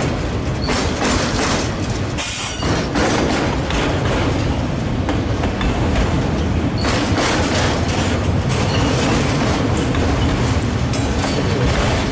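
Freight train cars rolling past close by: a loud, steady rumble of steel wheels on rail with irregular clacks.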